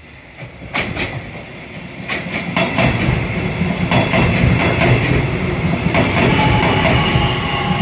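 Nishitetsu electric train running close by through the station, its wheels clacking over the rail joints. It grows louder over the first few seconds, then stays loud.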